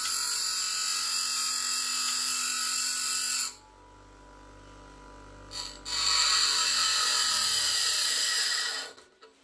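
Steel nail ground against the spinning wheel of a Parkside PDOS 200 bench grinder: a loud, steady grinding hiss for about three and a half seconds, a pause of about two and a half seconds with only the grinder's low motor hum, then a second grinding pass that stops about half a second before the end.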